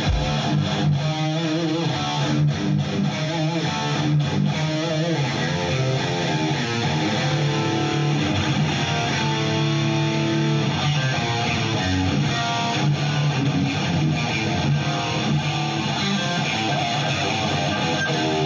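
Electric guitar played loud through the stage rig, riffing steadily with a bright tone.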